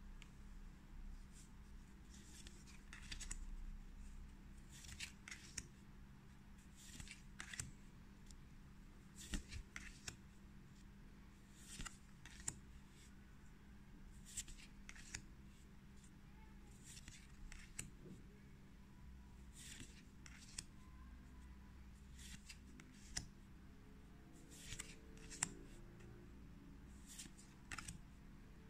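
Magic: The Gathering cards sliding against one another as a hand flips through a small stack one card at a time: faint, brief swishes every second or two, with a few sharper snaps.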